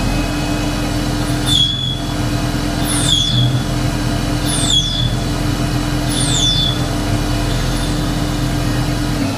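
Tormach CNC lathe spindle running a steady whine, with four short falling-pitch squeals about a second and a half apart as the carbide tool cuts the hardened steel dowel pin. The spindle stops near the end.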